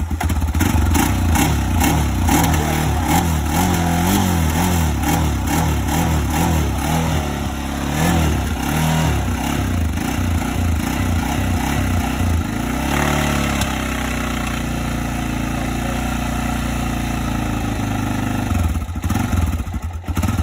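Freshly rebuilt Honda TRX400 ATV engine running, its speed rising and falling unevenly for the first dozen seconds, rising briefly about thirteen seconds in, then settling to a steadier run.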